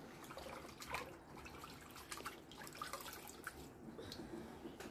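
Faint crackling rustles and drips from a wet cotton cloth being handled and shaken.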